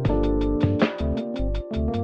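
Background music with a quick steady beat over held notes and a bass line.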